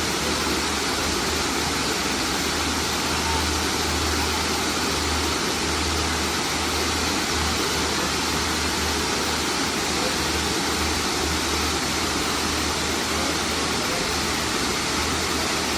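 Waterfall: falling water rushing steadily, with a low rumble underneath that comes and goes.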